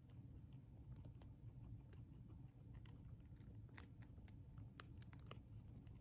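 Guinea pig chewing a hard Oxbow Vitamin C cookie: faint, irregular crisp crunches, coming closer together past the halfway point, over a low steady hum.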